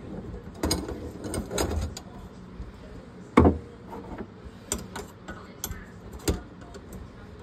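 Scattered knocks and clunks of plumbing work at a kitchen sink, with a heavy thud about three and a half seconds in and a faint steady hum underneath.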